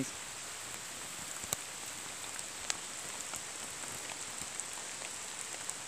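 Steady rain falling, an even hiss with a few sharp ticks.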